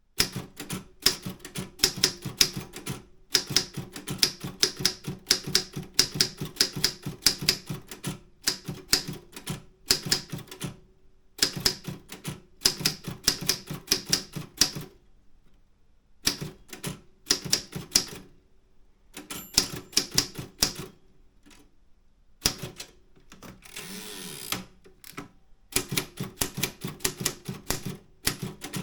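Optima M10 manual typewriter being typed on: rapid runs of sharp key strikes lasting a second or two, broken by short pauses. About two-thirds of the way in there is a brief rasping sound of a different kind.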